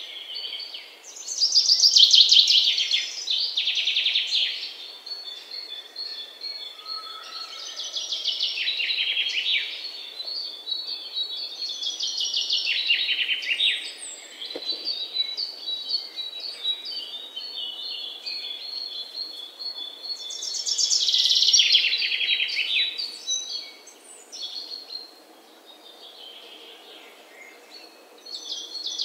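Songbirds singing: bursts of fast chirping trills and repeated high notes, one after another, over a faint steady hiss. The birds thin out and grow quieter a few seconds before the end.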